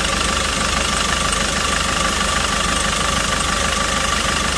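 Hyundai Porter 2's diesel engine idling steadily after repair, running smoothly with its earlier shaking gone.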